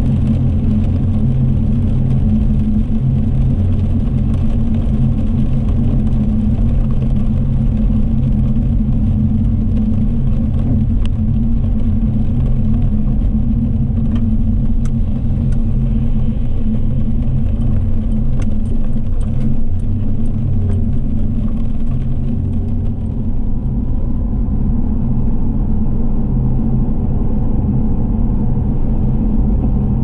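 Car driving: a steady low rumble of engine and road noise, with scattered faint ticks in the middle.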